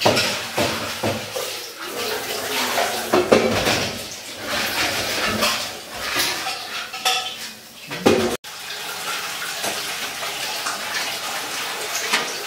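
Metal clattering and knocking of an oven tray and cutlery being handled, irregular clinks and scrapes throughout. The sound breaks off sharply about eight seconds in, after which a steadier hiss with lighter clinks continues.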